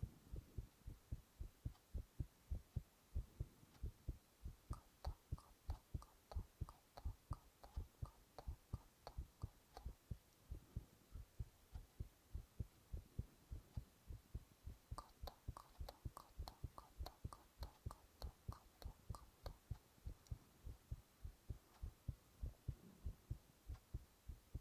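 A human heartbeat picked up by a microphone against the chest: a steady, even run of low, soft thumps. Over two stretches, fainter higher clicks sound alongside the beats.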